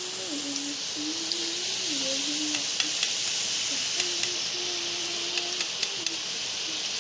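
Drops of gram-flour batter sizzling steadily as they deep-fry into boondi in hot oil. A few light metal clicks come from the spoon and perforated ladle as the batter is pushed through.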